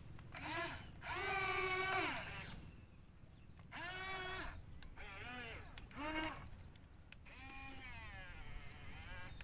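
An animal bleating about five times over a low steady hum. The longest call is held about a second, and the last slides downward.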